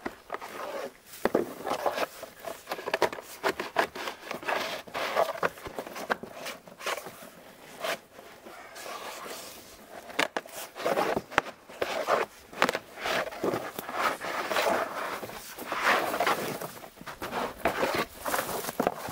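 Paper birch bark being worked loose from a felled log by hand and blade: irregular scraping, crackling and tearing as the bark sheet parts from the wood.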